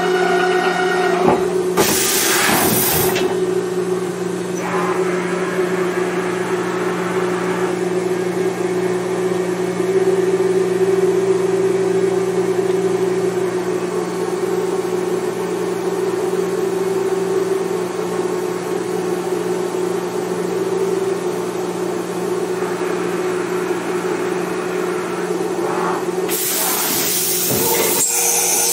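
Mori Seiki NH5000/40 CNC horizontal machining center running: a steady machine hum with a hiss over it. There are short, louder rushes of noise about two seconds in and again near the end.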